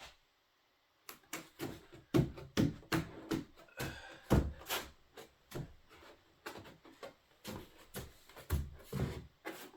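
Grip tape being pressed and rubbed down onto a plastic sled: a quick, irregular run of taps, knocks and rubbing that starts about a second in.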